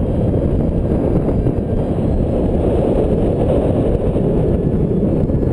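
Steady low rumble of wind buffeting the microphone, with no distinct engine note standing out.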